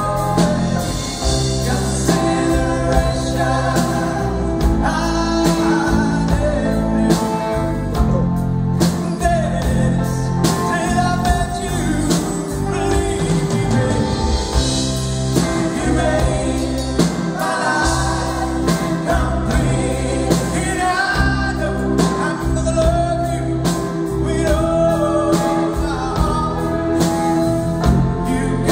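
A live band playing a song: a man singing lead over strummed acoustic guitar, electric guitar and drums.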